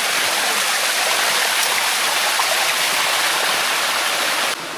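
Water rushing steadily down a limestone waterfall cascade, heard close by as a dense, even hiss. It drops abruptly in level near the end.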